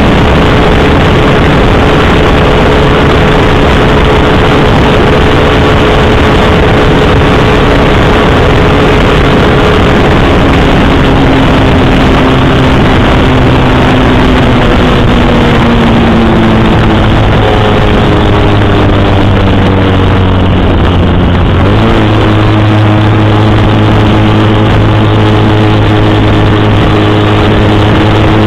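Motorcycle engine running on the road under heavy wind and road noise. Its note holds steady, sinks slowly for about twelve seconds, then steps abruptly to a new steady pitch about two-thirds of the way in.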